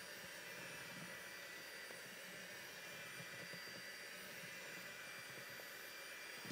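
Electric hand mixer running steadily, its beaters blending cake batter in a plastic bowl: an even whir with a faint high whine.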